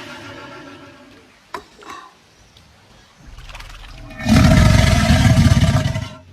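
A crocodile bellowing in its mating display: a loud, deep roar lasting about two seconds, starting a little after four seconds in. Before it the sound is quieter, with a sharp click about a second and a half in.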